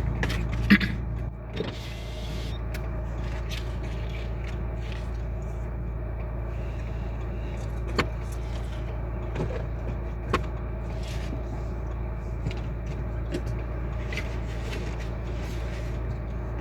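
Car driving along a road: a steady low rumble of engine and road noise, with a sharp click about a second in and a couple of fainter knocks later.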